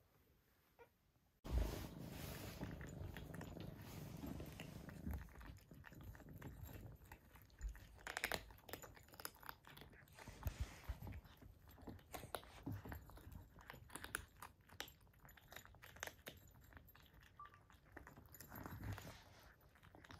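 A black cat and two kittens eating from raised ceramic bowls: quiet chewing with many small clicks, after about a second and a half of near silence.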